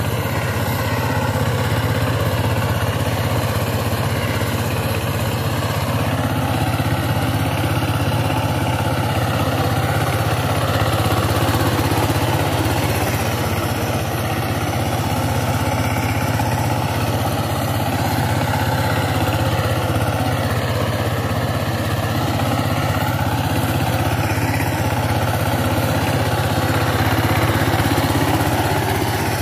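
Single-cylinder diesel engine of a two-wheel power tiller running steadily under load while its rotary tiller works the soil.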